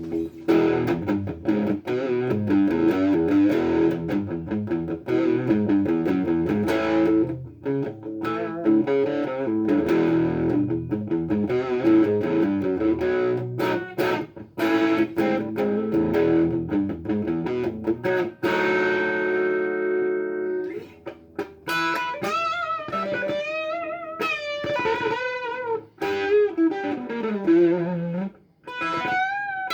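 Electric guitar played through a Tiger Boost overdrive pedal, a Tube Screamer-style overdrive: quick picked runs of notes, then a held chord about two-thirds of the way in, followed by lead notes bent up and down with wide vibrato.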